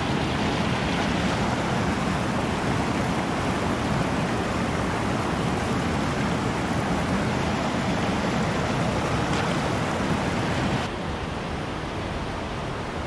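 Fast river current rushing and splashing over rocks, a steady noise. It drops suddenly to a quieter, softer rush about eleven seconds in.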